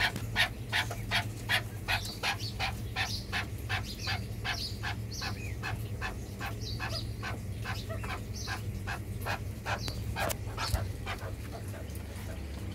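Partridges calling: a long run of short, clucking chuck notes repeated about three times a second, over a steady low hum.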